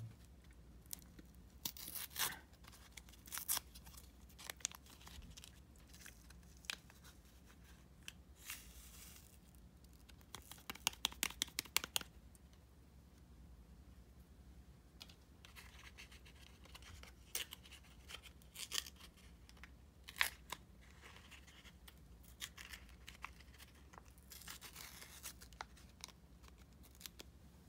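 Quiet crinkling and rustling of a foil sachet being handled, with scattered taps and a quick run of clicks partway through, as its sticky powder is shaken and tapped out.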